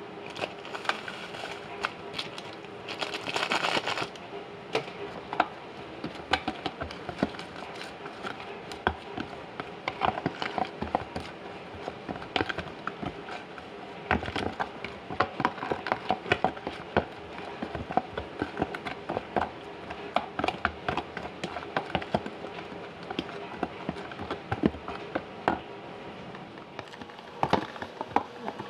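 Hands working fish and masala in a plastic tub: a short rustle of a spice packet being shaken out about three seconds in, then scattered taps and clicks against the plastic as the fish is mixed.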